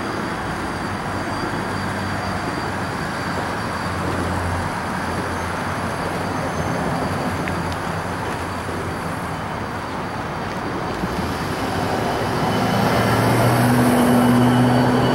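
High-rail pickup truck driving along the railroad track on its rail guide wheels, its engine and wheels running steadily and growing louder as it comes close and passes, loudest near the end.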